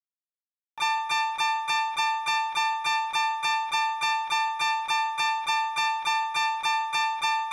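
Japanese railroad crossing warning bell ringing its 'kan-kan' alarm, a bright struck tone repeated evenly about three times a second, starting about a second in.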